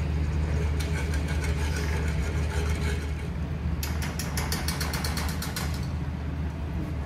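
Wire whisk beating a thickening white sauce in a large aluminium pot, its wires clicking rapidly against the metal in quick runs, densest about four seconds in. A steady low hum runs underneath.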